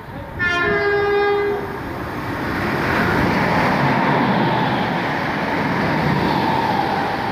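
Electric passenger train sounding its horn once, a single held note of about a second, as it nears the platform. It then passes close by with a loud, steady rush of wheels and air.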